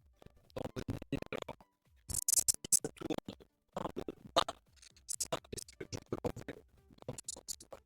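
Bursts of scratchy clicking, in clusters of about a second with short gaps between them.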